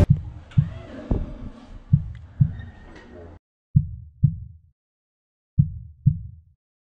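Heartbeat sound effect: slow, low double thumps, lub-dub, repeating about every two seconds. Faint background noise sits under the first few beats and cuts out about three seconds in, leaving only the beats.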